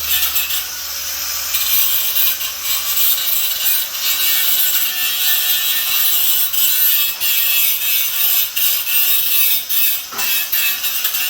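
Power tool working on metal: a steady, harsh rasping with a brief break about ten seconds in.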